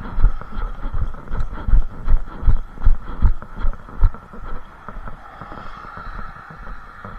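A run of muffled low thuds, about two a second, that fade after about four seconds, over a steady rushing hiss.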